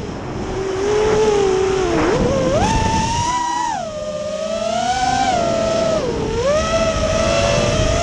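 FPV racing quadcopter's electric motors and propellers whining, the pitch dropping low, then rising sharply about two and a half seconds in and wavering up and down with the throttle through the rest of the flight.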